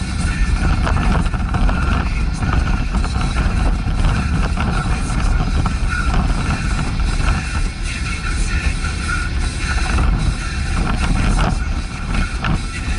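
Steady road noise inside a VW T5 van's cab while driving: engine and tyre rumble on the asphalt.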